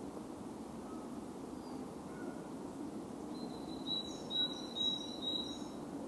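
A songbird singing a short phrase of four or five quick repeated high notes, starting a little past halfway, over a steady low background rush of the woods. A few faint distant bird notes come earlier.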